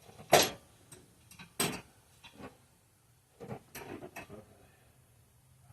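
A jack being raised under a car's muffler: a string of irregular clicks and knocks, the loudest about a third of a second in and a quick cluster of them about three and a half seconds in.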